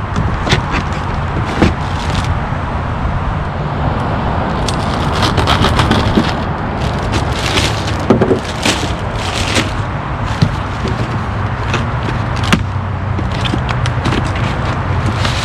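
Steady hum and rush of freeway traffic, loud throughout, with scattered short clicks, rustles and scrapes of parts and packaging being handled.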